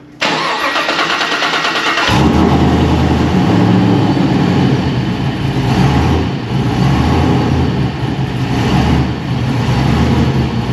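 A Chevrolet Silverado's cam-swapped V8 with an LT4 supercharger is cranked by its starter for about two seconds, then catches and settles into a steady idle.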